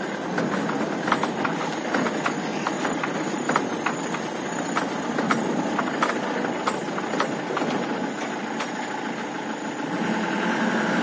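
Mahindra Bolero pickup driving slowly over a rough, rutted dirt track, its engine running under a steady rumble. Frequent sharp clicks and rattles come through at irregular moments as the truck jolts over the bumps.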